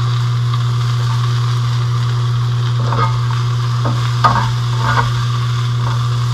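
Bell pepper strips and onion sizzling in a hot stainless steel pan, stirred with a plastic spatula that scrapes the pan a few times, about three, four and five seconds in. A steady low hum runs under it.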